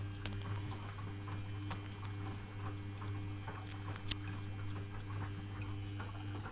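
Samsung front-loading washing machine tumbling laundry in water during its rinse cycle: a steady motor hum with small irregular clicks and splashes from the turning drum. The hum stops near the end.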